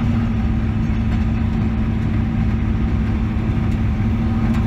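Engine and road noise heard inside a Studebaker Champion's cabin while cruising: a steady low drone with a constant hum.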